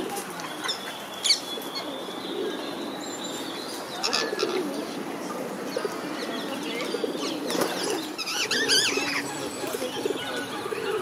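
Rose-ringed parakeets giving sharp, harsh calls: one about a second in, another around four seconds, and a quick run of squawks near the eight-to-nine-second mark, over a continuous low cooing of feral pigeons.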